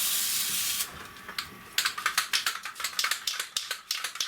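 Aerosol can of rubberized rocker-guard coating spraying with a steady hiss until about a second in, then a short second burst of spray. After that the can is shaken, its mixing ball rattling in quick, sharp clicks, several a second.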